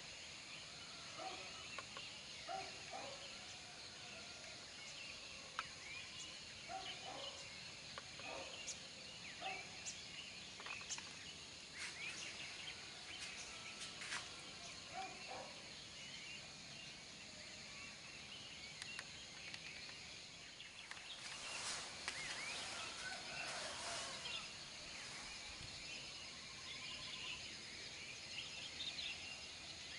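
Outdoor ambience of birds chirping, with short repeated lower calls through the first half and a brief rush of noise a little over twenty seconds in.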